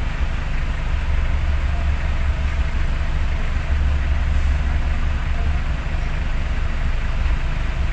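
Vehicle engine idling with a steady low rumble, heard from inside the cab.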